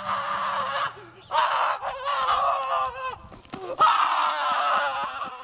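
A man screaming: three long, hoarse yells with short breaks between them, the last preceded by a quick rising cry.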